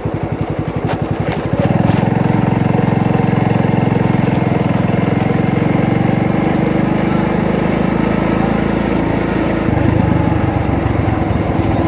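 Motorcycle engine running under way, with a steady pulsing note. It gets louder about two seconds in as the bike picks up, and the engine note shifts again near the end.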